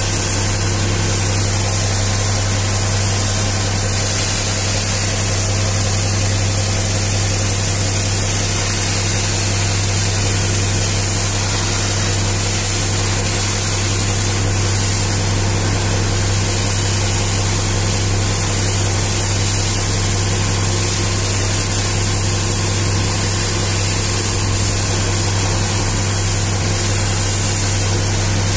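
High-pressure water jet hissing steadily as it blasts mud off a mining haul truck's tyre and underbody, over the constant low hum of an engine running.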